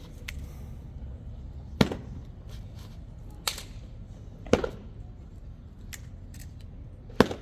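Sharp percussive impacts: three loud hits about two and a half to three seconds apart, a softer one between the first two, and faint clicks in between.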